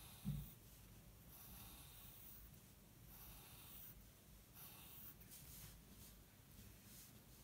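Faint scratching of a pencil drawing on paper in several short strokes, with a single soft low thump just after the start.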